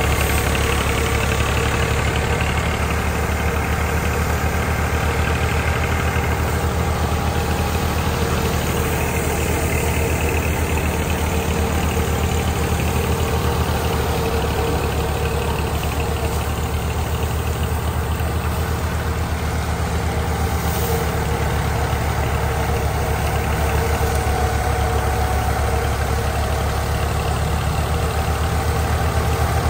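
Tractor diesel engine running steadily at constant speed while driving a crop thresher as straw is fed in, the engine's fast even pulsing and the thresher's steady hum blended together.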